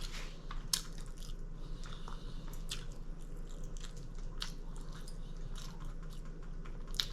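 Close-miked chewing of a crispy chicken tender sandwich: irregular crisp crunches and wet mouth clicks, several a second, over a faint steady low hum.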